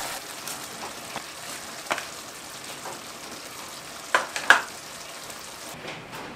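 Green curry with mushrooms and tofu sizzling in a pot while a wooden spatula stirs it, knocking and scraping against the pot a few times, loudest twice about four seconds in. The sizzling drops away near the end.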